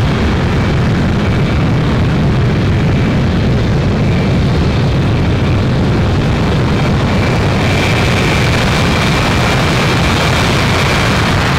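Boeing E-3A Sentry's four Pratt & Whitney TF33 turbofan jet engines running on the ground as the aircraft rolls slowly. There is a loud, steady low rumble with a thin high whine that grows stronger about eight seconds in.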